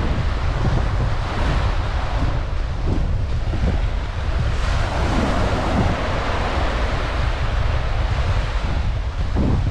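Surf washing onto a beach, with wind rumbling on the microphone.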